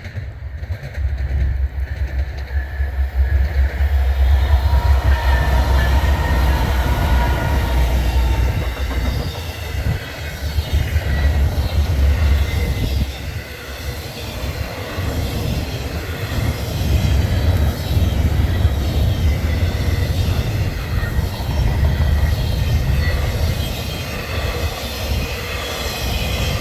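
CN freight train passing close by: a heavy, steady rumble of wheels and cars on the rails, building over the first few seconds, with clicking over rail joints and faint wheel squeal at times.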